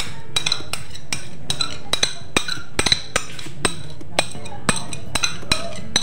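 Background music with a light percussive beat of sharp clicks, about two a second.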